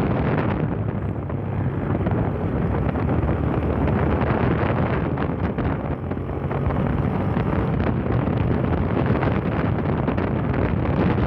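Heavy wind noise on the microphone over a Yamaha Fazer 150's single-cylinder engine running steadily.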